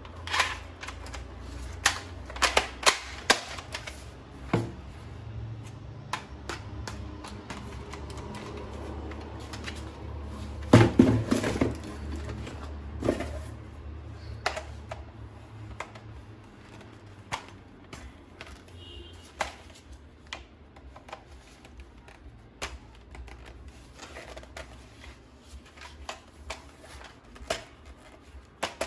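Irregular clicks, taps and knocks of a toy gun and its parts being handled, with a loud cluster of knocks about eleven seconds in. A low hum sits under the first half.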